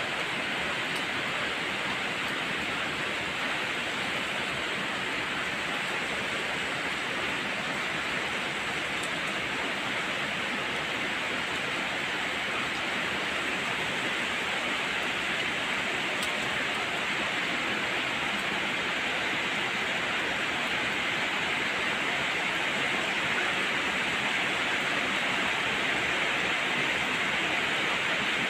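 Heavy monsoon rain pouring steadily: an even, dense hiss that grows slightly louder near the end.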